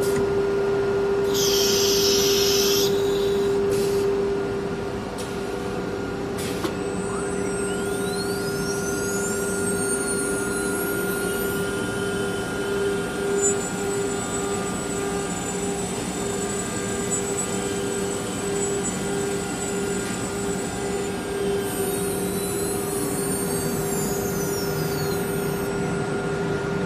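CNC router's 9 kW air-cooled spindle running at speed with a steady hum while it routes an MDF panel, along with the general machine noise. A short hiss of compressed air comes about a second in and lasts a couple of seconds. Faint high whines sweep up and down twice as the machine moves.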